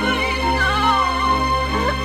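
Sample-based music: steady held low notes under a wavering, sliding high melody line.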